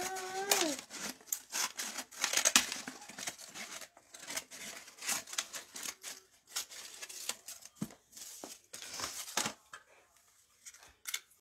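Scissors snipping through brown kraft paper, with the paper rustling and crinkling as it is cut and folded around a box.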